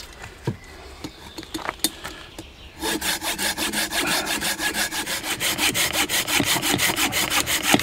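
Hand saw cutting through a round branch laid across a log, in fast, even back-and-forth strokes that begin about three seconds in. Before the sawing starts there are a few light knocks.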